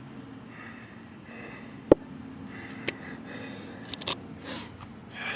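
A man breathing hard with effort while working a fallen gravestone up out of the mud, with a sharp knock about two seconds in and a few short huffs of breath near the end.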